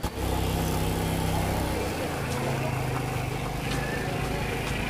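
A motor vehicle's engine running at a steady speed, an even low drone.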